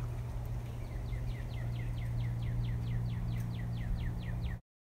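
A bird calling a rapid series of short downward-slurred chirps, about four a second, over a steady low hum. The sound cuts off abruptly near the end.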